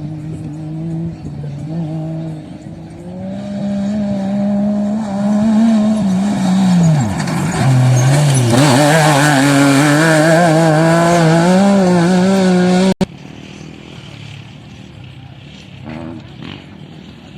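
A vehicle engine working under load off-road, getting louder, its pitch dipping about seven seconds in and then held high and wavering. It cuts off suddenly near the end, leaving a quieter running engine.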